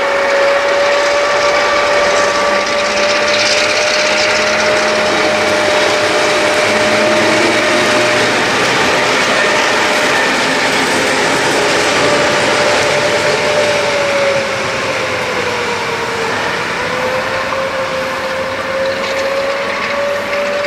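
Ludmilla-type (class 231/232) diesel locomotive running past, its engine noise carrying a steady whine that dips in pitch and recovers a few seconds before the end, with the wheels running over the rails.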